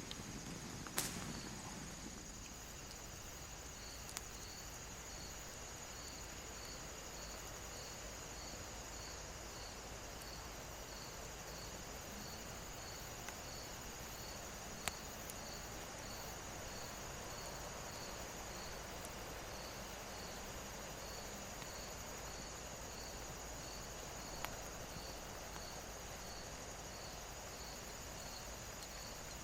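Crickets chirping steadily, a little more than one chirp a second, over a continuous higher insect drone and a soft even hiss. A few sharp clicks stand out, the loudest about a second in.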